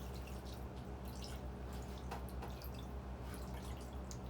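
Seasoned chicken steaming in its own juices in a pot, giving scattered small pops and drips over a steady low hum.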